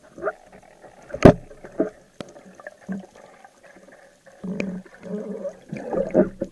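Underwater sloshing and bubbling as a speargun's shooting line is hauled in by hand, broken by several sharp knocks, the loudest about a second in.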